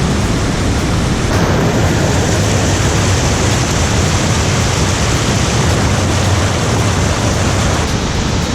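Loud, steady rushing of the Beaver Falls waterfall cascading on Havasu Creek.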